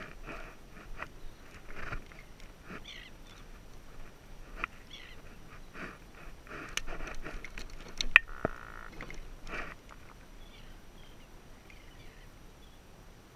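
Hands unhooking and handling a fish in a kayak: scattered clicks, knocks and rustling, with one sharp click about eight seconds in, quieter after about ten seconds.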